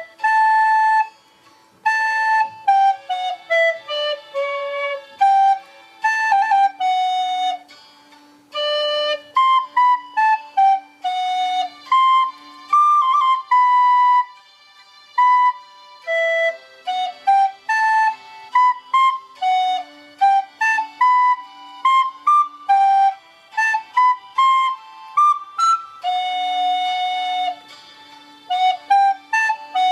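A plastic recorder playing a melody in short, separate notes, with a few longer held notes and brief pauses between phrases.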